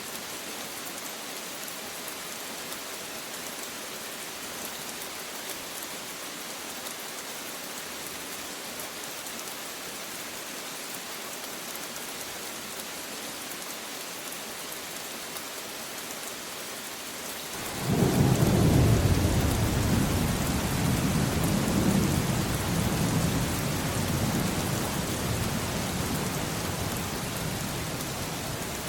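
Steady rain falling, with a loud rumble of thunder breaking in suddenly about two-thirds of the way through and slowly dying away.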